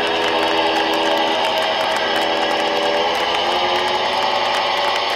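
Electric guitars through distorted amplifiers left ringing and feeding back at the end of a live punk rock song, a dense drone whose held notes drop out one by one.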